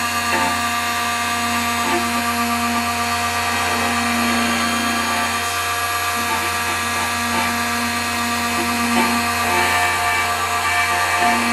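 A multifunction key-duplicating machine runs steadily while its motor-driven cutter mills a key blank, giving a constant hum with a whine over it. The cutting sound swells and eases as the key is passed slowly back and forth under the cutter.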